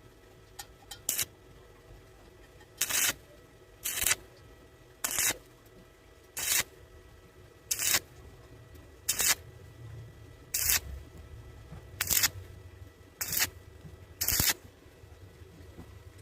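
Stick-welding arc struck in short bursts, about eleven sizzles of a quarter second each, roughly one every second and a quarter. This is an intermittent, stitch-style run of the kind used on thin metal to avoid burning through.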